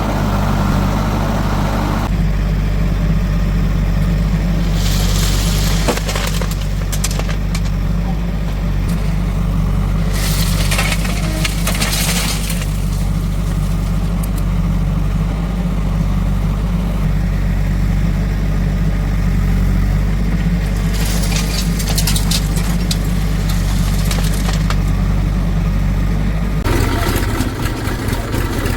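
Diesel engine of a backhoe loader working, a steady low running note, with several short bursts of crunching, scraping noise as earth is dug and dropped. The engine note shifts near the end.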